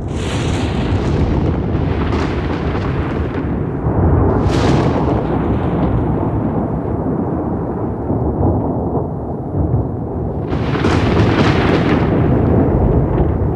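Rolling thunder: a continuous low rumble, broken by sharper crackling cracks about half a second in, at about four and a half seconds, and again for a couple of seconds from about ten and a half seconds.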